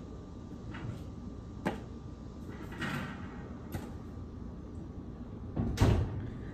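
Arepas and cookware being handled: several light knocks and clicks, then a louder thump near the end, over a steady hum.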